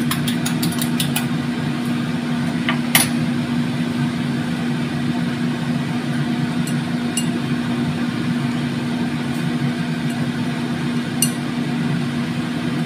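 A steady machine hum throughout. Over it, a few quick taps of a utensil stirring beaten egg in a ceramic bowl in the first second, then single light clinks of the bowl and wooden skewers about three, seven and eleven seconds in.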